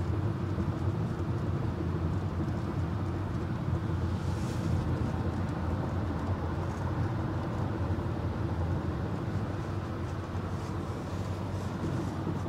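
Steady road noise of a car driving on a freeway, heard from inside the cabin: a continuous low hum and tyre rumble.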